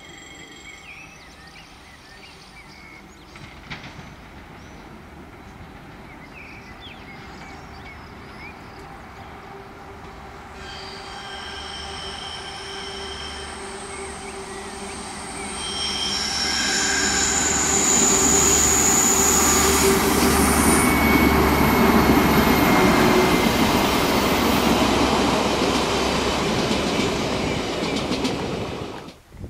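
A passenger train approaching and passing close by, building from a distant rumble to a loud passing roar with clickety-clack. From about a third of the way in, high-pitched steady wheel squeal rings over it. The sound cuts off abruptly at the end.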